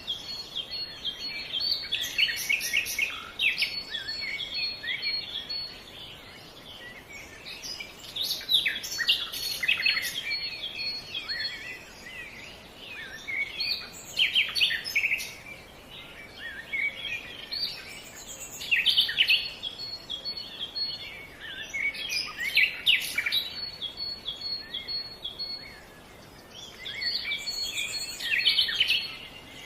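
Newly hatched chicks cheeping: bouts of rapid, high chirps that come every few seconds, with quieter gaps between.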